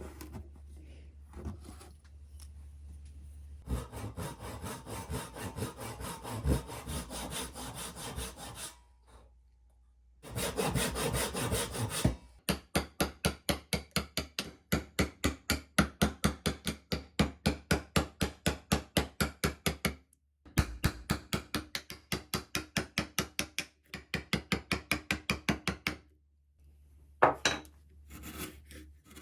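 Japanese hand saw cutting wood in runs of quick, even strokes, about four a second, broken by short pauses. Before the fast runs comes a few seconds of steadier rasping of a tool on wood.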